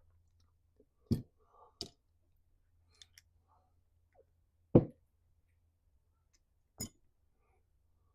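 A handful of separate clicks and knocks as small carburetor parts and tools are handled and set down on a workbench during a carb rebuild, the loudest a sharp knock a little past halfway.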